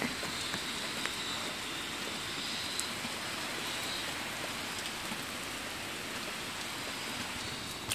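Steady rain falling, an even, unbroken hiss of rain on the ground.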